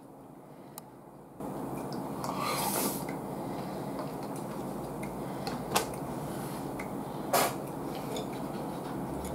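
Eating from a small bowl with chopsticks: utensils clicking against the bowl and dishes, with two sharp clinks in the second half, the later one the loudest.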